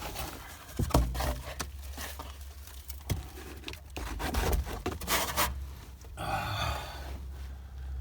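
Scraping, rustling and tearing with scattered knocks as old carpet scraps and debris are pulled and cleared off a car's sheet-metal floor pan.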